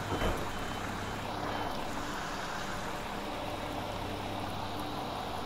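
Class 172 diesel multiple unit running, a steady rumble of engine and running gear, with a brief knock just after the start.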